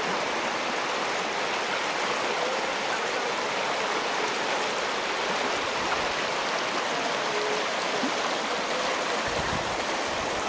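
Shallow river rushing over stones, a steady rush of water. A low rumble comes in near the end.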